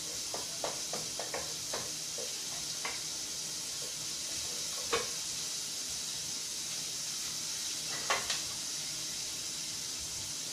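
Onions, celery and carrot sizzling steadily in a stainless steel pot, with a wooden spoon stirring and tapping against the pot several times in the first few seconds. Single sharper knocks come about five seconds in and again about eight seconds in.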